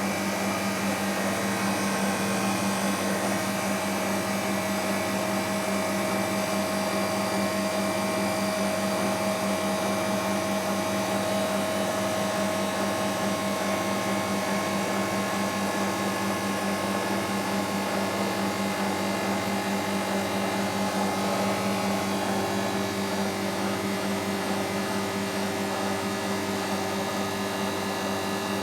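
Refrigeration condensing plant running: a steady fan-and-motor hum with a constant low tone, unchanging throughout.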